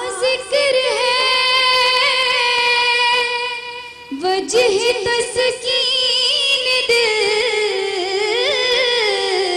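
A teenage girl singing a devotional Urdu kalaam (naat) solo into a microphone, without instruments. She holds long, ornamented notes that waver in pitch, with a short break about four seconds in before the next phrase.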